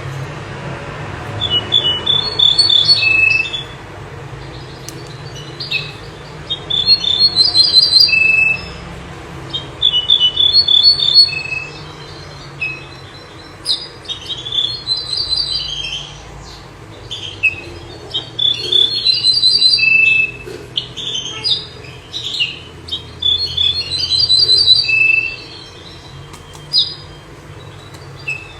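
A songbird, the one known in Morocco as 'bouh zarhouni' or 'minyar', singing in short, loud, high-pitched phrases of a second or two, repeated every couple of seconds, over a faint steady low hum.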